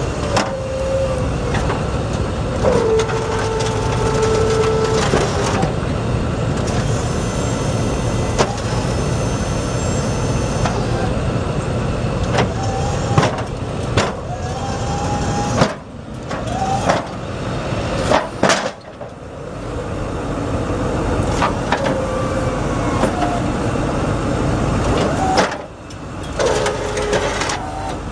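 Ford F450 Super Duty's 6.4-litre V8 turbo diesel idling while the Snow Dogg plow's hydraulic pump runs in repeated spells, a steady whine that shifts in pitch as the blade is angled and raised, with sharp clicks as it starts and stops.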